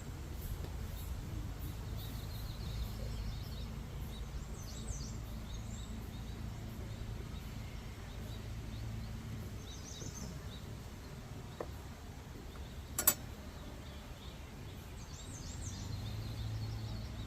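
Steady low hum of a mass of honey bees around an open hive, with faint bird chirps now and then. A single sharp click about thirteen seconds in.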